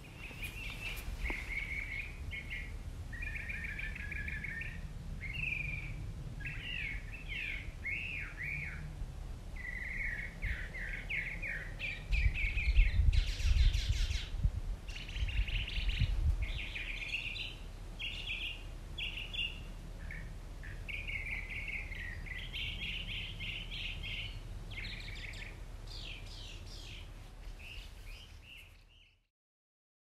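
Songbird singing a long run of varied, warbling phrases, with short pauses between them. A louder low rumble comes in about twelve seconds in and lasts a few seconds, and the sound fades out just before the end.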